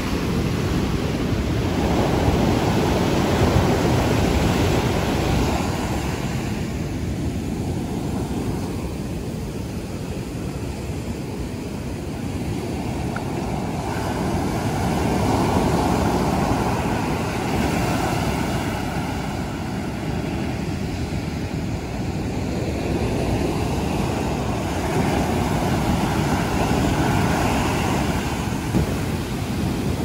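Heavy surf breaking on a sandy beach: a continuous rushing wash of rough waves that swells and eases three times, about every twelve seconds.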